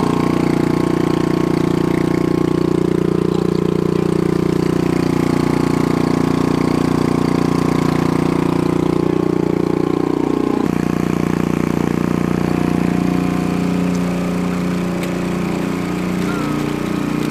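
An engine running steadily at idle, with an abrupt change in its tone about ten seconds in.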